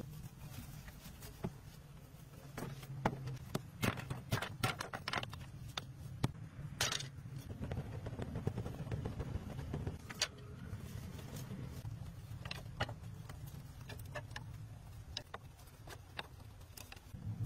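Scattered sharp clicks and knocks of handwork with sticks and wood, thickest in a run from about two to seven seconds in, over a low steady rumble.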